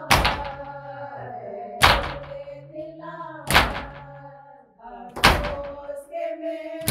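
Mourners beating their chests in unison (matam), one heavy thump about every 1.7 seconds, with voices chanting a nauha between the beats.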